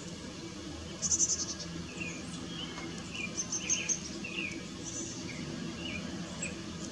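High, thin chickadee calls: a short rapid trill of very high notes about a second in and another in the middle, with scattered short chirps between them, typical of fledgling chickadees calling.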